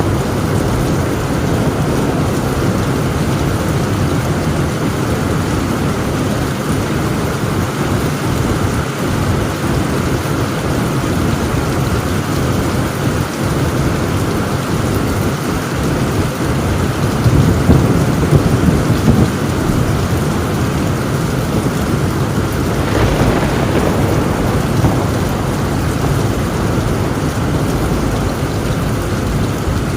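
Heavy rain pounding steadily on a tin roof, with thunder rumbling low and swelling louder about two-thirds of the way through.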